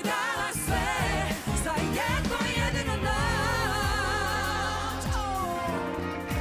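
A solo singer performing with a live band, singing with heavy vibrato: a long wavering held note in the middle, then a slide down in pitch about five seconds in, over a steady bass line.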